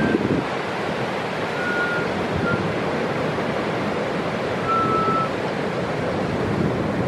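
Ocean surf breaking and washing ashore in a steady rushing wash, with wind rumbling on the microphone. A few faint, short high whistles sound through it, one about two seconds in and another near five seconds.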